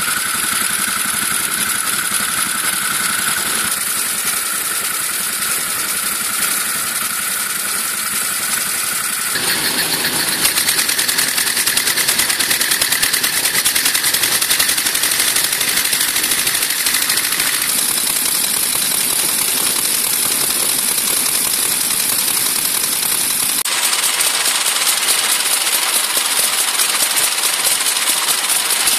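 Veteran motorcycle engines running at idle, one after another, with the sound changing abruptly about 9, 18 and 24 seconds in. The last is a New Hudson V-twin.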